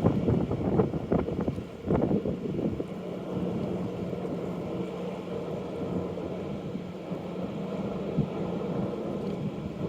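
Wind buffeting the microphone in gusts for the first two seconds or so, then a steady low engine hum under the wind noise, consistent with ships' engines as the vessel comes into port.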